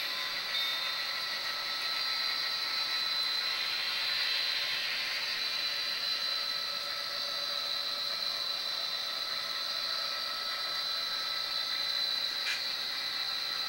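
HO-scale model freight cars and a caboose rolling along the track, a steady mechanical running noise over a constant high hiss.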